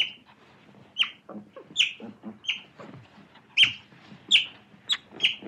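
Otter calling: a series of about eight short, high-pitched squeaking chirps, roughly one every two-thirds of a second.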